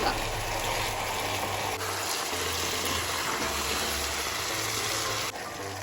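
Chicken pieces and spices sizzling in hot oil in a pot on high flame, a steady hiss that breaks off sharply near the end.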